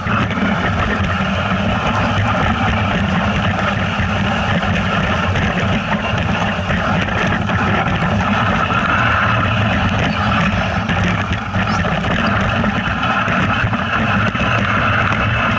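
A vehicle engine running steadily under way, with no clear change in pitch.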